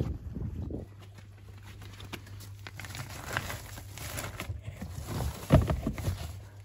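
Footsteps on a tarmac path, then plastic bin bags rustling and being pushed down into a plastic wheelie bin, with one loud thump about five and a half seconds in. A low steady hum sits under the bin sounds.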